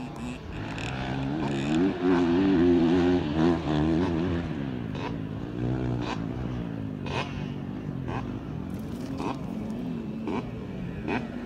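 Small dirt bike engine running and revving as it is ridden across dirt, its pitch rising and falling. It is loudest about two to four seconds in, then settles to a lower, steadier run.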